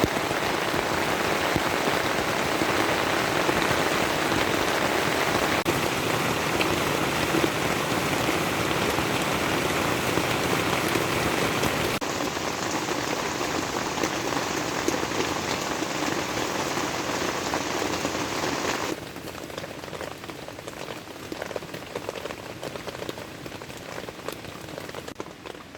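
Steady rain falling, a dense patter of drops. Its level drops abruptly about halfway through and again about three-quarters through.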